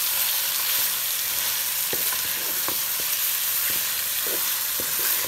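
Bone-in beef, sliced onions and cumin seeds sizzling in hot oil while being stirred, browning together in the pan. A steady hiss, with a few light knocks and scrapes of the spoon against the pan.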